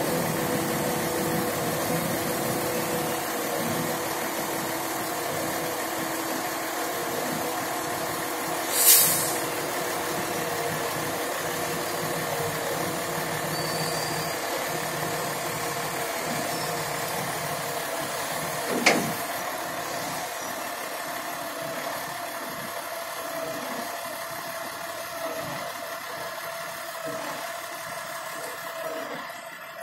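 Heavy diesel engines of a mobile crane and a flatbed truck running steadily during a lift, with a brief loud hiss of air about nine seconds in and a single sharp knock about nineteen seconds in. The engine drone eases off over the last third.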